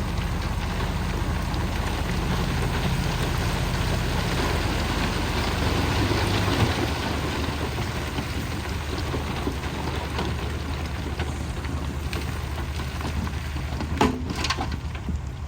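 A bulldozer's diesel engine runs steadily, with a constant noisy hiss of stone being pushed and spread. A single sharp knock comes near the end.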